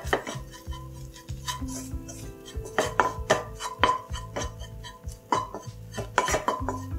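Wooden spoon scraping and knocking against a coated pan in irregular strokes while stirring a butter-and-flour roux as it cooks toward light brown.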